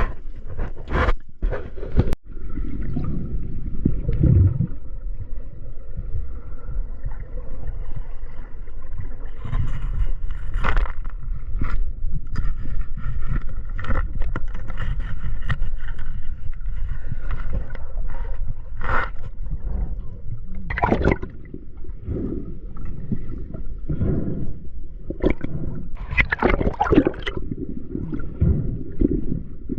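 Water sound picked up by a camera during a spearfishing dive: a steady low rumble of moving water with gurgling, broken by frequent sharp clicks and knocks.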